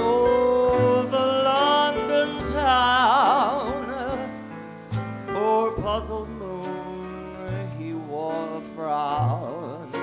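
A male vocalist singing a slow jazz ballad in long held notes with wide vibrato, accompanied by piano and plucked double bass.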